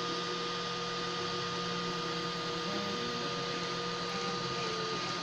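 Homemade 3D printer running a print: its stepper motors whine at held pitches that jump to new pitches as the print head changes moves, about three seconds in and again near the end. A steady high tone and a hiss run underneath.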